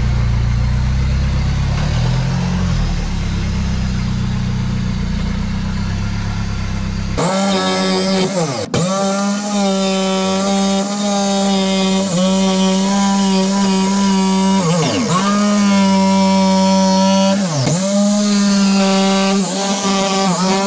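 A low rumble for about the first seven seconds. Then a corded jigsaw with a new fine metal-cutting blade cuts a slot in thin sheet-metal panel: its motor whine runs steady, dips sharply in pitch and climbs back several times.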